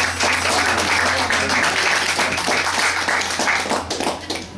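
Small audience applauding at the end of a live song, with some voices among the clapping, tailing off near the end. A steady low hum runs underneath.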